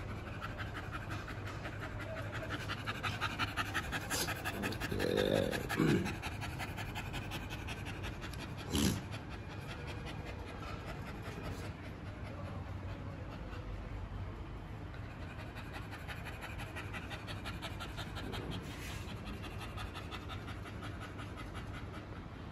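An American bully dog panting rapidly and steadily, open-mouthed. A brief louder sound comes about five seconds in, and a single sharp click near nine seconds.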